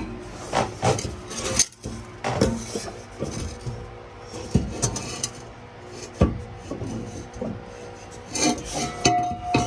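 Steel exhaust pipe and muffler being wrestled loose from under a truck: irregular metal clanks, knocks and scraping, with a short squeak near the end.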